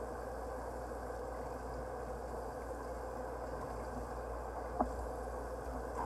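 Bathroom sink tap left running, a steady hiss of water, with one brief click about five seconds in.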